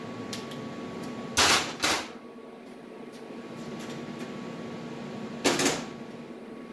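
Three short, loud bursts of noise over a steady hum: two close together about a second and a half in, and one more near the end.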